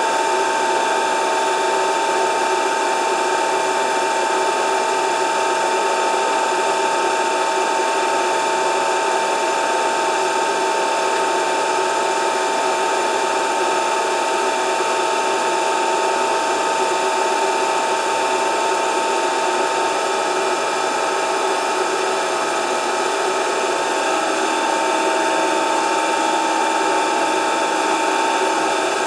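Grinding machine running steadily, a constant high whine with no change in speed.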